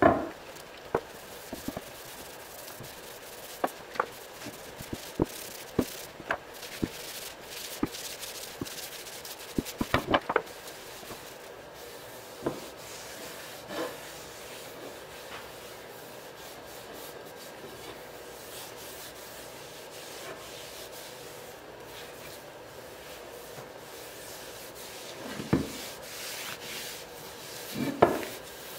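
A cloth rag rubbing tung oil varnish onto an ipe hardwood steering-wheel rim, a soft steady rubbing, with scattered light clicks and knocks as the wheel is handled and turned on the workbench.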